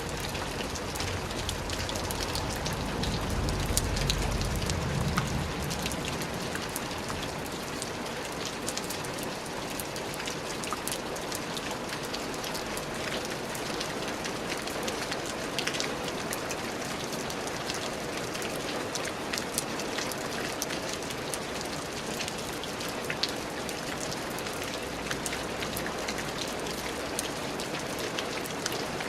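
Steady rain falling, an even hiss dotted with many sharp drop ticks. A low rumble swells briefly a few seconds in.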